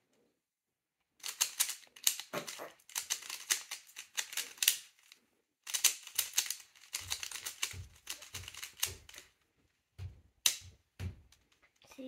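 Stickerless 3x3 speed cube clicking rapidly as its layers are turned in fast runs of moves, starting about a second in, with brief pauses around five and ten seconds. Some duller knocks come in the second half.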